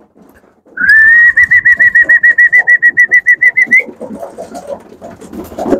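A person whistles a warbling call to the pigeons, a high tone that slides up at the start and wavers quickly for about three seconds. After it come softer clicks and shuffling from the racing pigeons feeding on grain on the wooden slatted floor.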